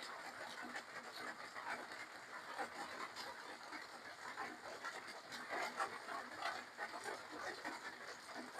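A person eating spicy seafood papaya salad with rice noodles close to the microphone: chewing, smacking and slurping in short, irregular mouth sounds.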